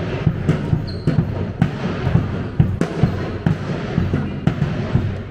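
A handball bouncing on a sports-hall floor, with repeated, irregular thuds as the players dribble and run.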